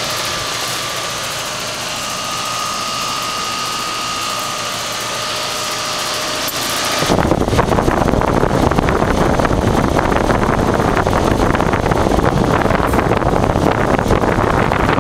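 Outdoor condensing unit of a Trane XL15i 4-ton heat pump running steadily in cooling mode, its fan and compressor going. About halfway through, the sound turns abruptly louder and fuller with a rushing noise.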